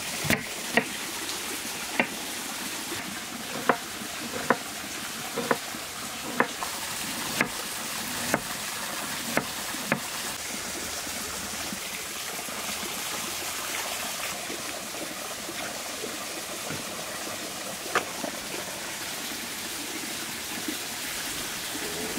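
Kitchen knife chopping a red onion on a wooden cutting board: sharp single knocks of the blade on the board, about one a second for the first ten seconds, then only a steady hiss with one more knock near the end.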